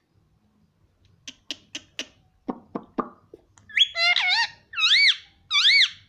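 A run of short sharp clicks and knocks, then an Indian ringneck parakeet calling: a quick warbling call about four seconds in, followed by two high calls that each rise and fall.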